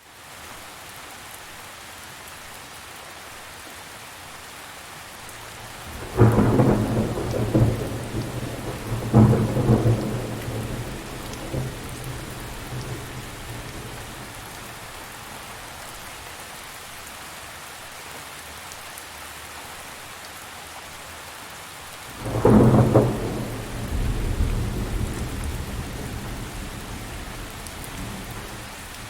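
Steady rain falling, with thunder rumbling twice: a long double rumble about a fifth of the way in and another about three quarters of the way in, each fading out over several seconds.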